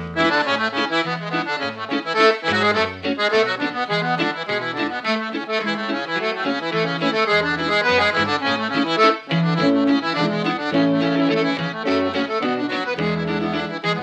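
Traditional folk tune played on accordion, quick melody notes over a bass line, with a brief break about nine seconds in.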